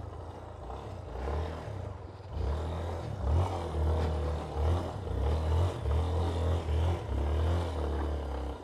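Yamaha Ténéré 250 single-cylinder engine pulling the motorcycle through a knee-deep creek, its note rising and falling and louder from about two seconds in, with the engine partly under water. Water splashing and the bike clattering over the stream bed.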